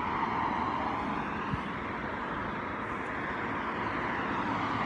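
Steady hum of distant road traffic, with one faint click about a second and a half in.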